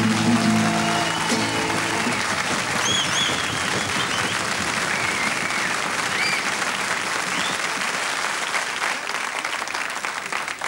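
A nylon-string classical guitar's last chord rings out, and an audience applauds for several seconds, the clapping fading away near the end.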